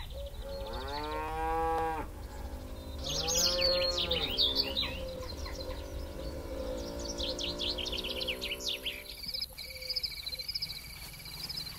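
Cattle mooing twice: the first call rises in pitch and then holds, and a second follows a second later. Birds chirp in between, and a steady high-pitched trill sets in near the end over a low rumble.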